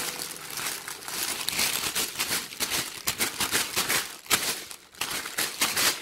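Clear plastic garment wrap crinkling and rustling as hands handle it, in quick irregular crackles.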